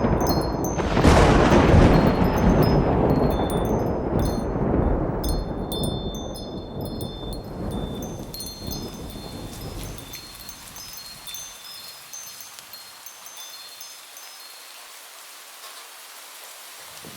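A thunderclap about a second in, rolling and slowly fading away over the next several seconds, with wind chimes tinkling over the dying rumble. It dies down to a faint hiss near the end.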